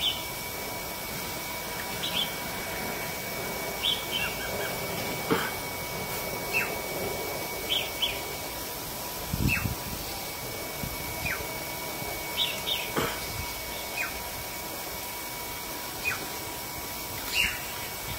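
Short bird chirps, each a quick falling note, repeating every second or two over a steady background hiss, with one low thump about nine and a half seconds in.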